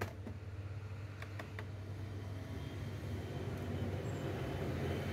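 Steady low background hum with a few light clicks of a small screwdriver against the screws and plastic bottom case of a laptop: one sharp click at the start, then three quick ones about a second in.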